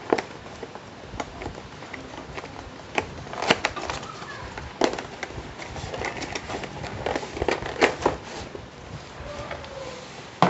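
Cardboard box being handled and opened by hand: irregular sharp taps, knocks and scrapes of cardboard over a low rustle.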